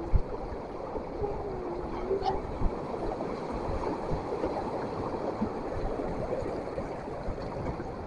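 Choppy sea washing steadily against the shore and pier, a continuous rushing of water with no distinct breaks.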